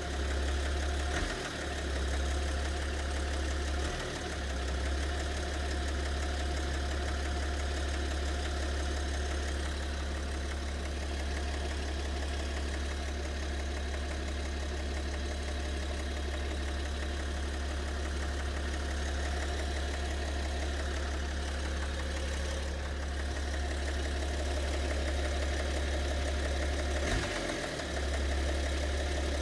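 BMW 730d's M57 (306D3) 3.0-litre straight-six turbodiesel idling steadily, recorded for an unexplained knock that the owner hears in the engine and cannot diagnose.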